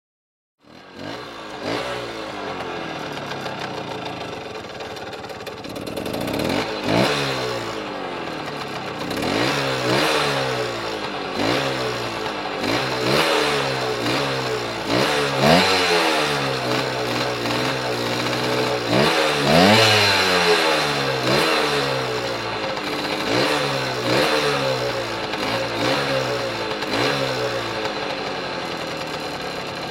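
Flandria Mistral 50cc two-stroke moped engine running and being blipped again and again: short revs rise and fall back to idle about every one and a half to two seconds. It cuts in abruptly about half a second in. The hardest revs come about halfway through.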